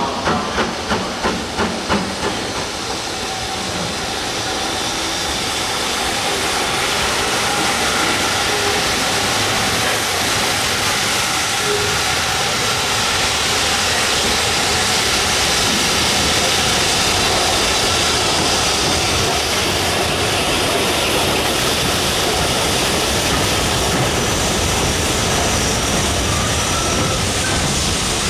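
BR Standard Class 5 4-6-0 steam locomotive working a passenger train, its exhaust beating about two and a half times a second at first. The beats then give way to a steady hiss and rumble that grows louder as the engine comes past and its coaches roll by.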